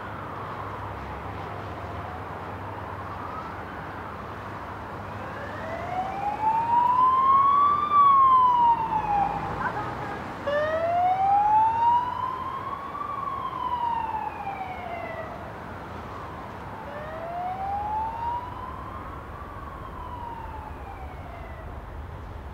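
A siren wailing in slow rising and falling cycles, each about four to five seconds long. It is faint at first, loudest over two wails in the middle, then fades, over a steady low rumble.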